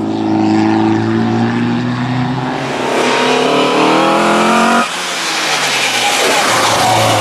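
Touring race car accelerating hard up the hill climb. Its engine note climbs for about two seconds and breaks off sharply near the middle, followed by a rushing noise as the car goes by.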